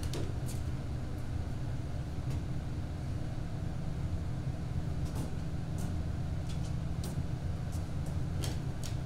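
Steady low rumble of room tone on a stage, with a few faint footsteps on the stage floor from about five seconds in.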